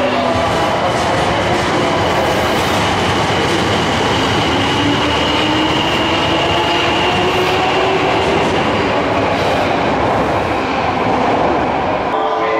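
Subway train running along the platform, with loud wheel-on-rail noise and an electric motor whine that rises in pitch midway through, as when the train is gathering speed.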